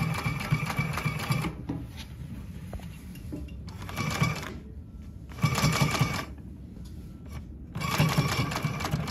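Consew 339RB-4 two-needle walking-foot industrial sewing machine stitching through heavy fabric in four short runs, stopping and starting, with a high ringing tone in each run. This is the noise of a part hitting that the operator has yet to fix.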